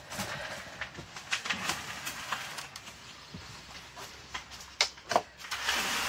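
Scattered knocks and clicks of a plastic bucket being handled. Near the end, feed pellets rattle as they pour from the bucket into a wooden trough.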